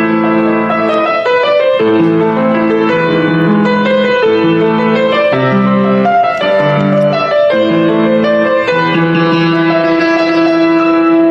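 Piano music: held chords that change every second or two under a melody line.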